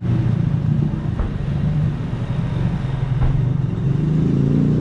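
A motor vehicle's engine running steadily close by, its pitch rising a little near the end, with two light knocks over it.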